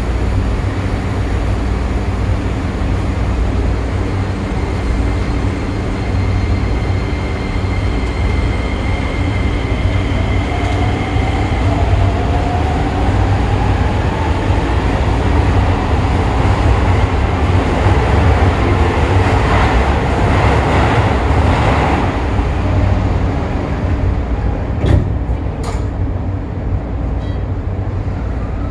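Inside a Toei 5500 series subway car standing at a station: the car's equipment keeps up a steady low hum. A slowly rising whine comes in partway through, the noise swells for a few seconds, and two sharp knocks sound near the end.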